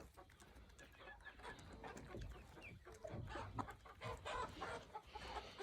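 Backyard chickens clucking faintly, many short scattered calls from several birds, a little louder near the middle.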